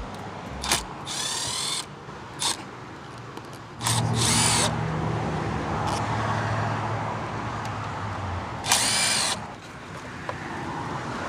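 Cordless power driver spinning in three short bursts, each a whine that swings in pitch, unscrewing the T30 Torx fasteners that hold the engine's plastic beauty cover. A few sharp clicks from handling the tool and parts fall between the bursts.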